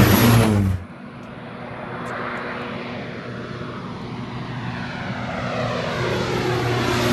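Propeller-driven crop-duster airplane passing low overhead, its engine pitch falling as it goes, cut off abruptly under a second in. Then another low-flying propeller airplane is heard approaching, its engine growing steadily louder.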